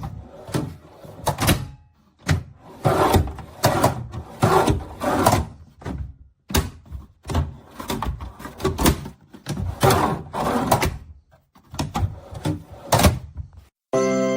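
DeWalt ToughSystem 2.0 two-drawer plastic tool box being handled: drawers and latches worked with a rapid, irregular run of clicks, knocks and clatters.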